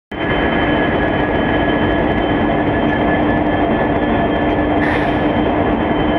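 Diesel locomotive engine running steadily with a constant tone. A brief hiss about five seconds in.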